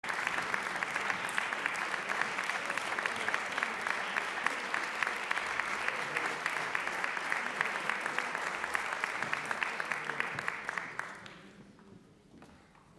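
Audience applauding in a concert hall, a dense patter of many hands clapping that dies away about eleven seconds in.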